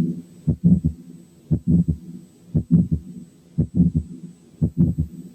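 Heart sounds heard through a stethoscope at about one beat a second, with a faint early diastolic murmur after the second sound: the murmur of aortic regurgitation.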